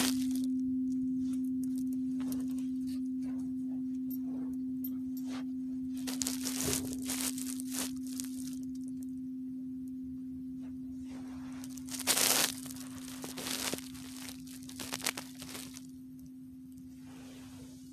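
A singing bowl ringing out on one steady low tone that slowly fades away. Scattered crackles and pops from a wood fire sound over it, the loudest about twelve seconds in.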